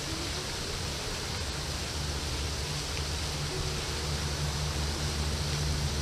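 A steady, even rushing noise, with a low rumble that grows stronger in the second half.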